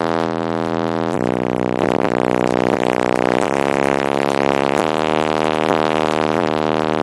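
Deep bass line from a car audio system's two 18-inch subwoofers played at competition level, heard inside the car, changing note every second or so. It is loud enough to read about 149 dB on the SPL meter.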